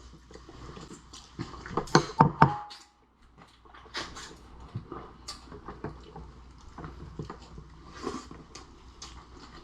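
Eating noises at a lobster and shrimp meal: a cluster of sharp cracks and clicks about two seconds in, likely lobster and shrimp shells being broken open. Scattered small clicks and smacks follow.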